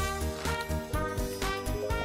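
Background music with a steady beat and jingling bells, a light Christmas-style tune.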